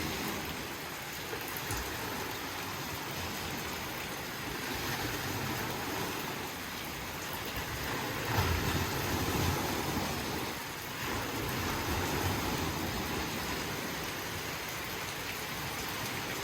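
Heavier rain falling steadily, a broad even hiss that swells slightly about halfway through.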